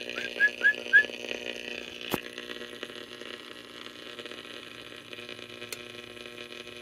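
Steady hum and hiss from the powered-up tube set of a 1938 Zenith Radio Nurse, with no voice coming through: the test words spoken into it are not being picked up. Five short chirps come in the first second, and a single click about two seconds in.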